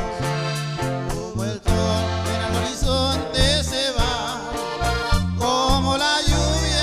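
Norteño band music: an accordion plays the melody over bass notes on a steady beat, in an instrumental passage of the song.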